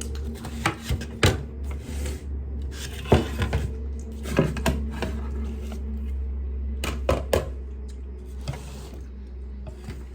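Cutlery and dishes clinking at a meal: scattered sharp taps and clicks over a steady low hum.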